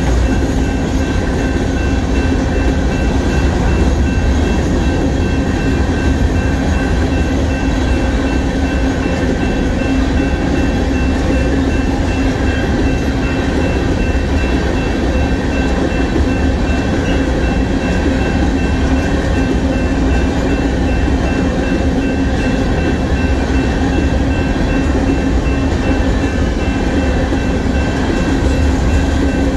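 Covered hopper cars of a freight train rolling steadily past: a loud, even rumble and rattle of wheels on the rails. A high ringing from the grade-crossing bell carries on over it.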